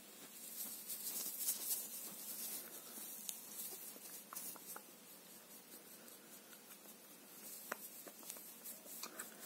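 Close-miked scratching, rubbing and light tapping of fingers and a small handheld object at the microphone, an ASMR trigger. The sound is crisp and full of tiny ticks, louder for the first couple of seconds and then softer.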